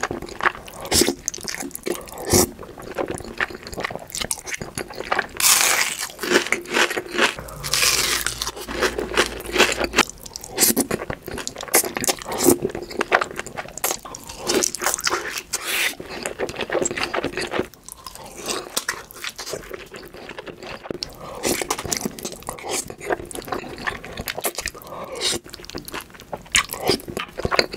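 Close-miked eating: creamy noodles slurped up from chopsticks, near the start and again near the end. In between come crunchy bites and chewing of crispy hash browns and fried luncheon meat, a dense run of sharp crackles.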